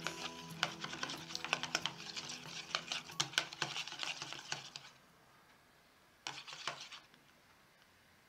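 Wire whisk beating thin tempura batter in a ceramic bowl: rapid clicking and scraping of the wires against the bowl, stopping about five seconds in, with one brief burst of whisking again a second later.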